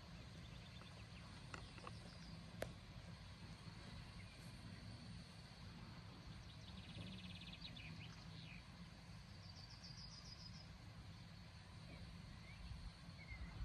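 Near silence outdoors: a faint steady low rumble, with a few short bird trills and chirps and a single sharp click about two and a half seconds in.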